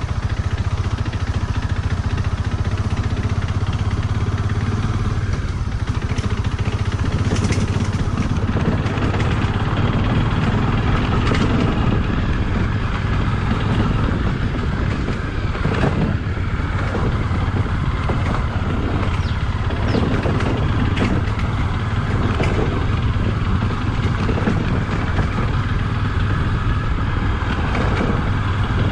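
Motorcycle engine running steadily while riding a rough off-road forest track, with irregular rattles and knocks from the bumps.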